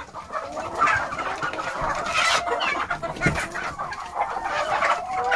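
A large flock of red laying hens clucking and calling all at once, short overlapping calls with one longer drawn-out call near the end.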